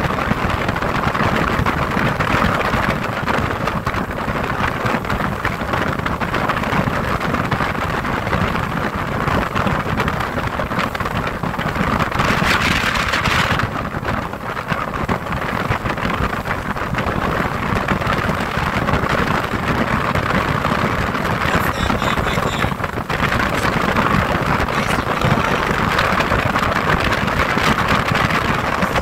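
Steady rushing noise of a small motorboat under way: wind on the microphone and water running along the hull over the motor's low rumble, with a brighter surge of hiss about twelve seconds in.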